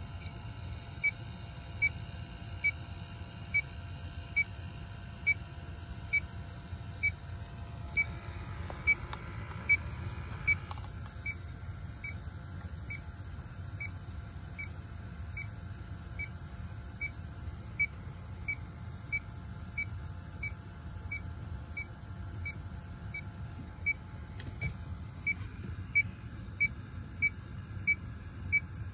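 Inficon D-TEK 3 refrigerant leak detector beeping steadily, a little over one short high beep a second, fainter through the middle and louder again near the end, over a low rumble.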